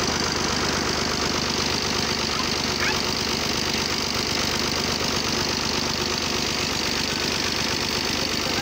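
An engine running steadily with a fast, even low-pitched pulse.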